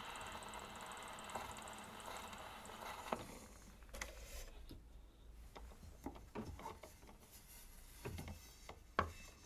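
Gramophone needle running on in the groove of a 78 rpm shellac record with steady surface hiss, cut off by a click about three seconds in as the soundbox is lifted off. Then light clicks and knocks as the disc is lifted off the turntable and turned over.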